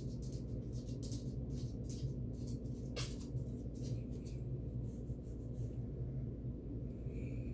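Steady low hum with faint, irregular small ticks and clicks over it, one sharper click about three seconds in; the ticks die away near the end.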